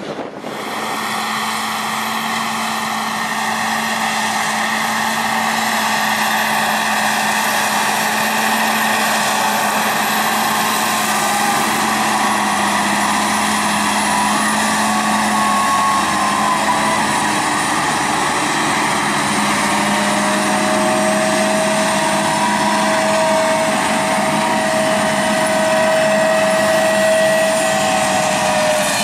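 Heavy farm machinery working in the field: a steady diesel engine drone with whining tones from the running machinery. A low tone fades out past the middle and a higher whine comes in after it.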